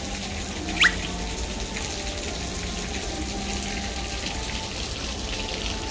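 Steady splashing of water from a stone courtyard fountain, with a single short, sharp chirp about a second in.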